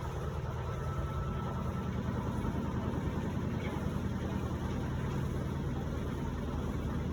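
Electrolux LPE16 washing machine running its wash cycle with a steady low motor hum.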